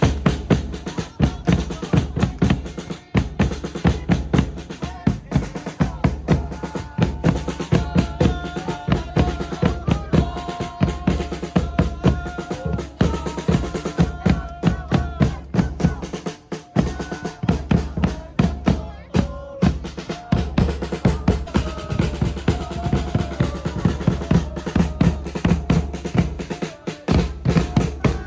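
Music with a driving drum-kit beat, deep bass and a melody line, with a brief break about two-thirds of the way through.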